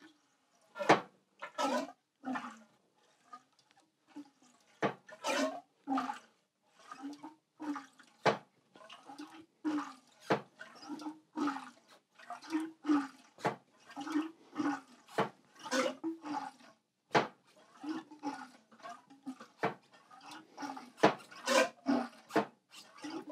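Fork oil gurgling and squelching inside the front fork legs of a 1978 Triumph Bonneville T140V as the forks are pumped up and down by hand, a burst with each stroke. The pumping is working air out of the freshly filled damping oil. A few sharp clicks are heard among the strokes.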